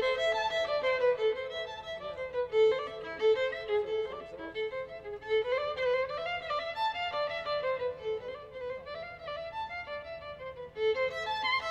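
Violin music: a single flowing melodic line, notes moving up and down, with a brief lull near the end before the phrase resumes.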